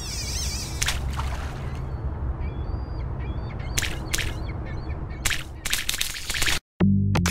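Sound effects for an animated fishing-float logo ident: a steady low rumble, several sharp swishes, and a few short high chirps in the middle, cutting off suddenly near the end.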